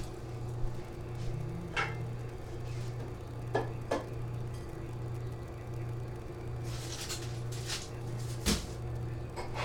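Scattered light knocks and clinks of dishes and cupboard doors being handled, about a dozen separate sharp sounds with a steady low hum underneath.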